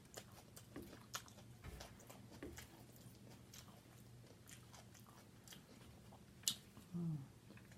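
Faint chewing and crunching of salad close to the microphone: many small wet clicks, with a sharper click about six and a half seconds in. A short hum of the voice comes near the end.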